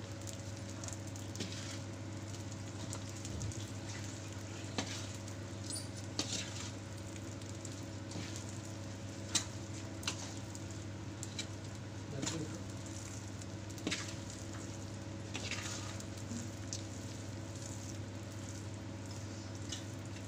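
Steel slotted spoon stirring a ghee-soaked roasted flour and almond mixture in a steel bowl: soft scraping and patting with a few light clinks against the bowl, over a steady low hum.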